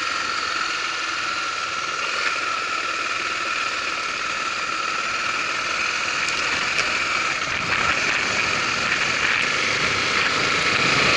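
Honda Tornado 250's single-cylinder four-stroke engine running steadily as the motorcycle rides, getting louder over the last few seconds.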